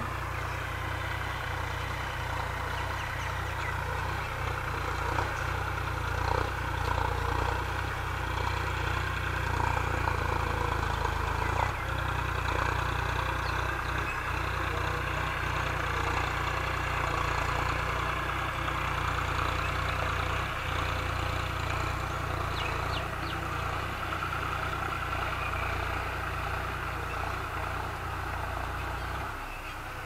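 Farm tractor's engine running steadily while pulling a plough.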